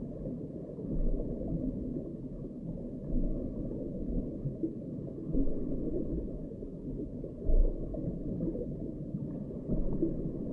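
Muffled underwater rumble and gurgling picked up by an underwater fishing camera lowered through the ice, with a few dull bumps, the loudest about seven and a half seconds in.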